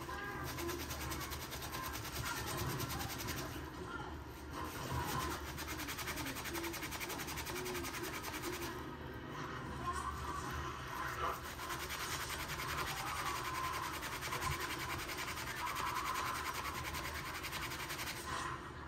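Paper towel scrubbing over a plastic car roof grab handle, a steady rubbing that eases off briefly about four seconds in and again about nine seconds in.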